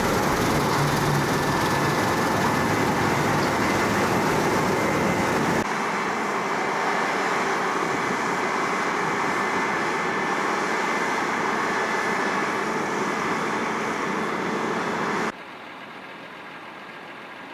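New Holland 9.90 combine harvester running while cutting wheat with a 13.6 m draper header: a steady, noisy hum of engine and threshing machinery. The level drops abruptly about six seconds in and again near the end, as the machine is heard from farther off.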